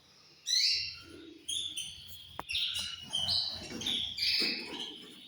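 Canaries chirping: a run of short, high calls one after another, several falling in pitch. A single sharp click a little past two seconds in.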